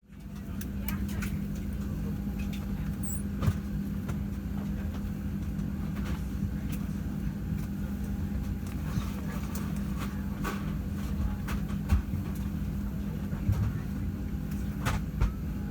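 Steady cabin hum of a Boeing 737-700 parked at the gate, the ventilation air running, with scattered clicks and knocks from the cabin.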